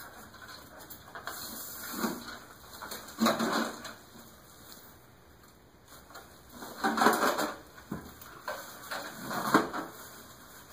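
Styrofoam packing pieces being pulled off a boxed computer case, with several short bursts of rubbing and scraping. The loudest come about three, seven and nine and a half seconds in.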